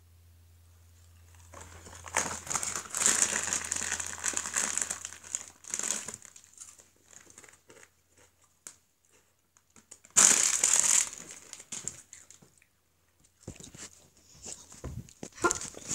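Crisp packet being crinkled and rustled in a long spell, then again in a short loud burst about ten seconds in.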